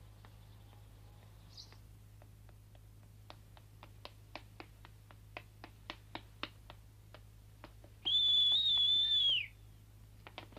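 Footsteps on stone paving, light clicks at about three to four a second, then a loud, high whistle held for about a second and a half that drops in pitch as it ends.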